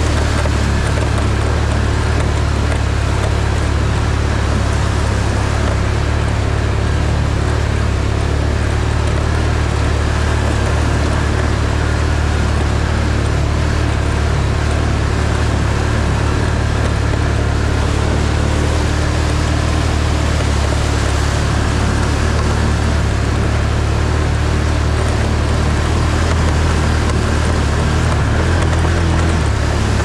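Off-road vehicle engine running steadily under way, a constant low engine note with a steady rushing noise over it.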